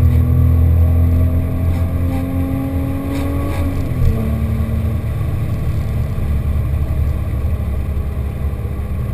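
Porsche 997.1 GT3's 3.6-litre flat-six, heard inside the cabin through a GMG World Challenge exhaust with headers and sport cats, pulling under steady acceleration with its pitch slowly climbing. About four seconds in it shifts up, the pitch drops, and then it settles into an even cruise.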